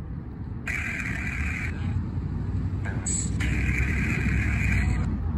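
Spirit-box app on a phone playing choppy bursts of static that switch on and off abruptly, twice for about a second or more, over a steady low rumble.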